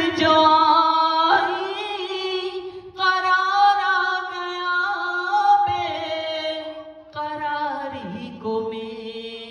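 Unaccompanied naat singing without words: a voice holds long, wavering notes in several phrases over a steady lower vocal drone.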